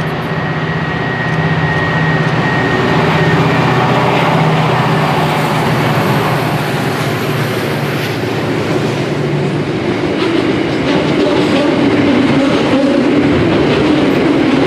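Pacific National 81 class diesel-electric locomotives, EMD two-stroke V16 engines, running under power as they haul a container freight train past, their steady engine note fading out after about nine seconds. The container wagons then roll by with a steady wheel rumble and clickety-clack over the rail joints.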